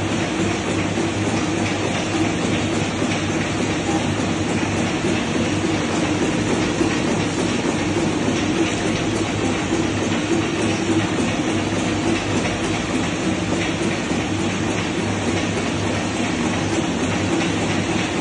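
Horizontal flow-wrap packaging machine running steadily, wrapping trading cards in clear film at full speed: a continuous mechanical noise with a steady low hum.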